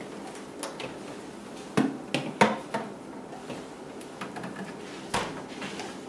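A few light knocks and clatters around two seconds in as an item is set inside a compact Haier refrigerator, then the fridge door is shut with a single thump about five seconds in.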